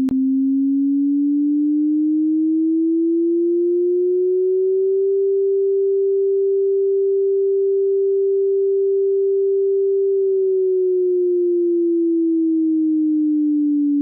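Computer-generated tsunami warning siren, a single pure tone made in Audacity to imitate a real siren. It glides slowly up in pitch, holds steady for several seconds, then glides back down in a slow wail.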